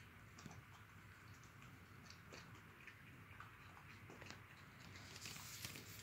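Faint, irregular crunching and clicking of a small dog chewing dry kibble from a plastic bowl. Near the end a louder rustle joins in.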